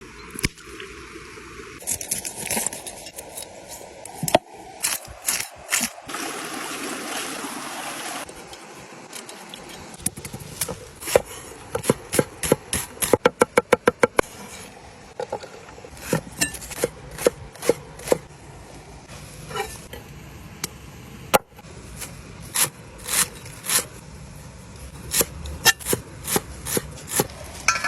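Close-up food-preparation sounds of a carp being readied for cooking: a long string of sharp knocks and scrapes, with a quick even run of about eight knocks in a row around the middle.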